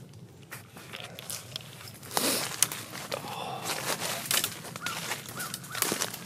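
Footsteps crunching and shuffling through dry fallen leaves, with brush rustling against clothing; the crunching starts about two seconds in and keeps on unevenly. A few short bird calls come in near the end.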